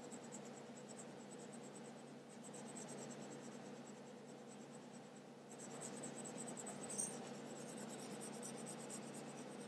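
Pencil scratching on paper in quick repeated shading strokes. It is faint and gets a little louder about halfway through, with one sharper tick about two-thirds of the way in.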